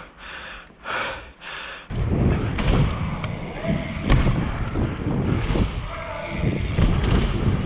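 BMX tyres rolling fast over wooden bike-park ramps, heard through a helmet-mounted camera. A loud rumble starts about two seconds in and runs on, with a few sharp knocks as the bike hits ramp edges and transitions.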